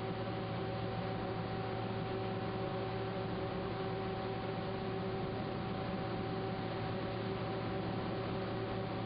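A steady hum with an even hiss and a few held tones, unchanging throughout.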